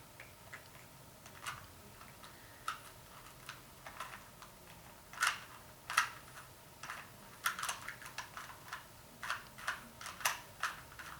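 ShengShou 2x2 speed cube being turned, a quick irregular run of plastic clicks and clacks as the layers are twisted during a solve.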